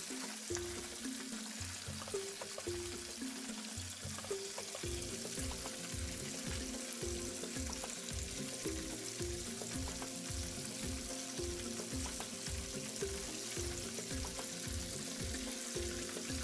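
Chicken wings deep-frying in a pan of hot oil: a steady bubbling sizzle. Background music with a steady bass beat plays underneath.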